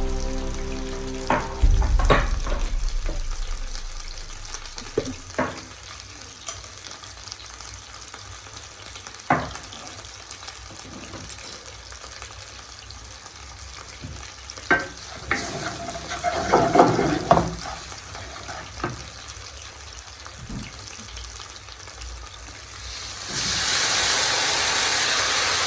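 Kitchen cooking sounds: scattered knocks and clatters of utensils against cookware. About 23 seconds in, a steady sizzle of food frying in a pan starts.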